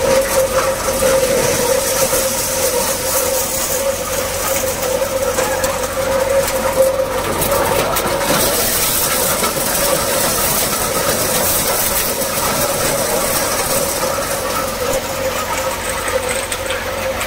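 Multi-crop thresher running steadily as dry-husked maize cobs are fed into its hopper, a constant machine noise with a steady whine and a high hiss.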